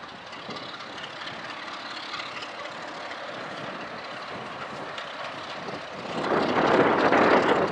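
BR Class 33 'Crompton' diesel locomotive running under power as it approaches with a train of coaches, its engine drone steady at first, then growing much louder about six seconds in as it draws close.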